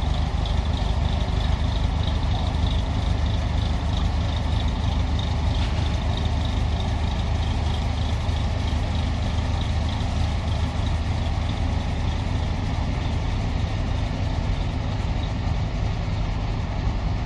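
Boat engine running steadily, a low even drone with no change in speed.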